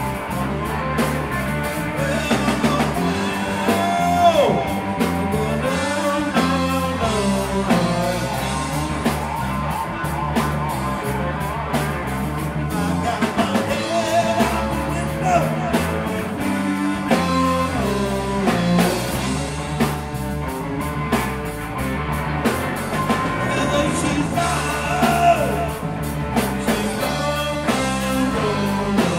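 Live rock band playing a blues-rock number: electric guitars over bass guitar and drum kit, with a singer's voice. The lead guitar bends notes several times.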